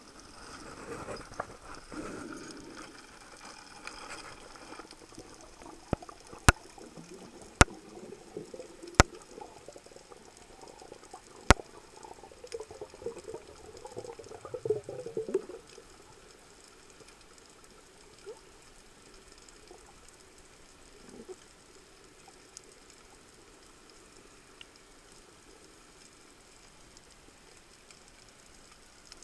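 Water moving around a submerged camera, heard underwater: muffled rushing and gurgling for the first sixteen seconds or so, broken by four sharp clicks, then a faint steady hiss.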